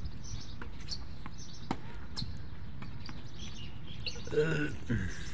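Tennis ball being hit by rackets and bouncing on a hard court, heard as a few sharp, separate pops. A short shout about four seconds in, with birds chirping faintly.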